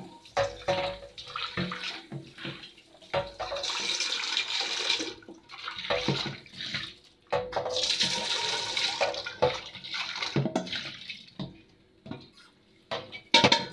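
Tap water running into a cooking pot being washed in a sink, in two spells of about two seconds each, with knocks and scrapes of the pot being handled and scrubbed between them.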